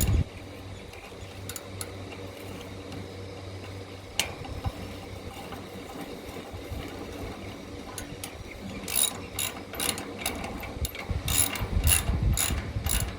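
Ratchet wrench clicking as a nut is tightened onto a bolt. The clicks are scattered at first, then from about two-thirds of the way in come in a quick run of two to three a second.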